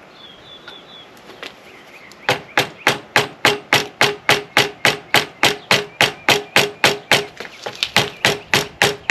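Hammer striking metal at a steady pace, about four blows a second, each with a short ringing clang, starting about two seconds in. It is working loose the 8 mm bolt on a motorcycle's lower fork triple tree.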